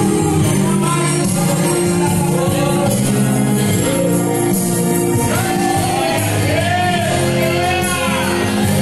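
Live gospel worship music through the church's amplified sound system: a voice sings sliding, drawn-out notes into a microphone over sustained accompaniment chords.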